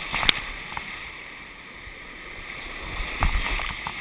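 Whitewater rapids rushing around a kayak, heard close up from a camera mounted on the paddler with water splashing against it. Sharp splashes just after the start, and a louder burst of splashing and buffeting about three seconds in.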